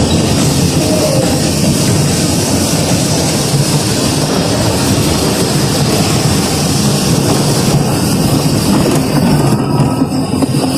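Bumper car driving around the rink: a steady, loud rolling and motor noise from the moving car.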